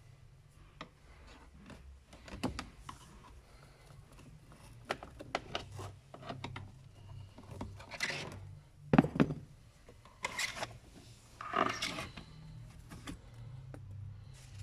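Plastic parts of a car's cabin air filter housing being handled: rubbing and scraping with scattered clicks, louder around the middle and latter part, over a low steady hum.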